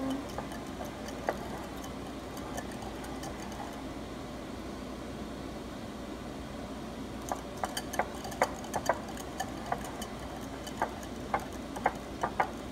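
Wire whisk stirring instant pudding in a glass bowl. From about halfway on it knocks against the bowl in irregular sharp clinks, one or two a second, over a steady low hum.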